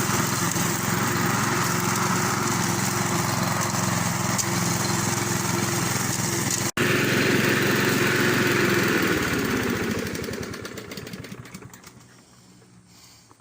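Briggs & Stratton single-cylinder lawnmower engine running steadily at working speed while cutting grass, with no bogging down. About nine seconds in it is shut off and winds down, its pitch falling until it stops about three seconds later.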